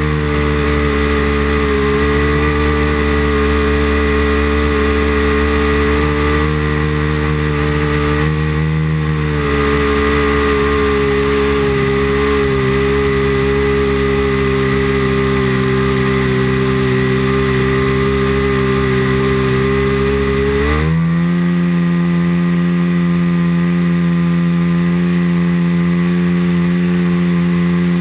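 Onboard sound of a .90-size four-stroke nitro model airplane engine running steadily in flight. About three-quarters of the way through, its pitch climbs quickly as the engine speeds up, then holds at the higher speed.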